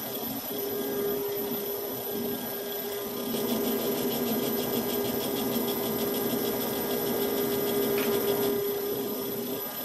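A DIY CNC lathe running with a steady hum while it turns a nylon rod. From about three seconds in a brush is pressed against the spinning rod to clear stringy wound-up chips, adding a fast, even rustle that stops shortly before the end.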